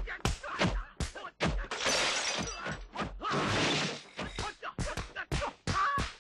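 Kung-fu film fight sound effects: a fast run of sharp blows, with two longer crashes of something smashing and breaking about two seconds and three and a half seconds in.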